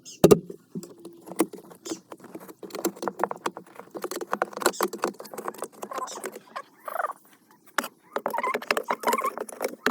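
Hands-on repair work on a washing machine: a rapid, irregular run of clicks, knocks and scraping, with a loud knock just after the start and a few brief squeaks in the second half.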